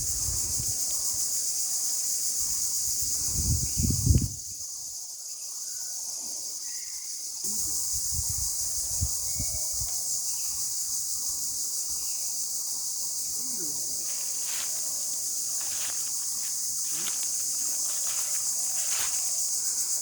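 Steady, high-pitched chorus of insects trilling, with a few low thumps in the first few seconds.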